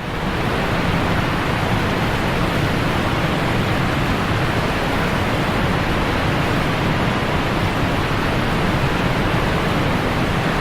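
Floodwater rushing in a steady, loud, unbroken rush.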